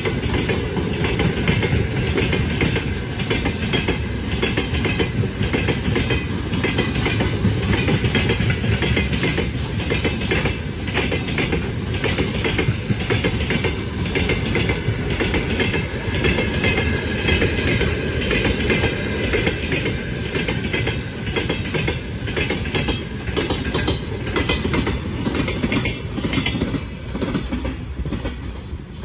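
Freight train wagons rolling past at speed, the wheels clicking rapidly over the rail joints. The sound fades near the end as the train moves away.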